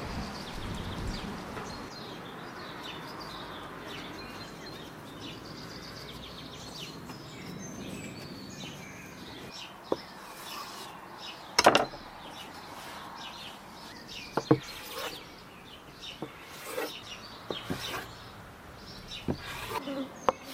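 Knife cutting through soft dough and knocking on a wooden table: a handful of sharp knocks from about halfway in, the loudest one just after that, over a steady background with birds chirping.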